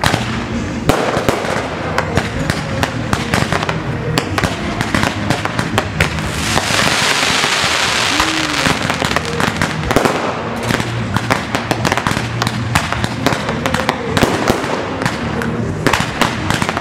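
Fireworks display: a rapid run of aerial shell bursts and crackling, with a dense hissing crackle from about six to nine seconds in.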